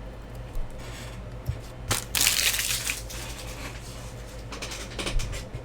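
Packaging crinkling and being crushed by hand, with one loud burst about two seconds in and softer crackles near the end, over a steady low electrical hum.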